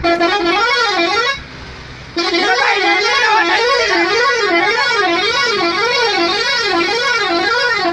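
Bus air horn blaring a warbling tone whose pitch wobbles up and down about twice a second. It breaks off for under a second about a second and a half in, then starts again.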